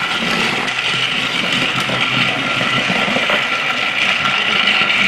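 Battery-powered TrackMaster Toby toy train running along plastic track, its small motor giving a steady whir.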